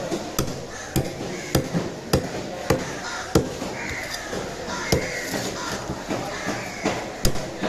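Heavy curved cleaver chopping through a fish onto a wooden log chopping block: six sharp chops in an even rhythm of about one every half second, then two more spaced further apart.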